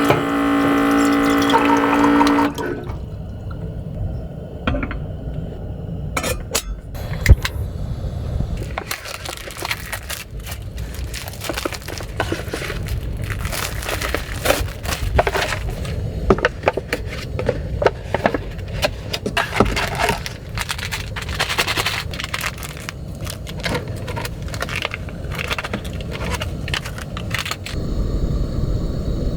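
Gusty wind rumbling on the microphone, with frequent rustling, scraping and clattering of things being handled. A steady pitched tone sounds for about the first two seconds, then stops.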